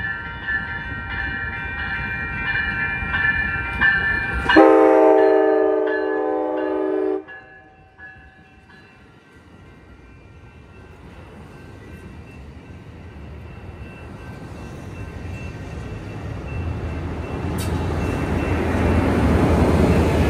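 Amtrak Capitol Corridor train passing: a level-crossing bell rings steadily until a long horn blast from the leading bilevel cab car, about four and a half seconds in, lasting about two and a half seconds. Then the noise of the bilevel cars rolling by builds, loudest near the end as the Siemens SC-44 Charger diesel locomotive pushing at the rear goes past.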